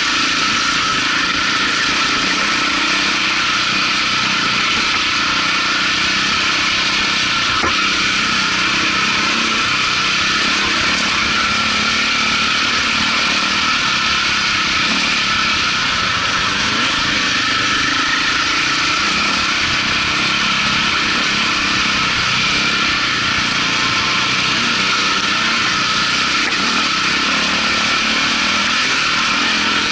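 KTM 400 EXC four-stroke single-cylinder enduro bike engine running steadily while riding, heard close up from the bike.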